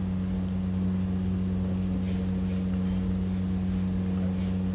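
A steady low machine hum, with a few faint light clicks from metal gearbox parts being handled.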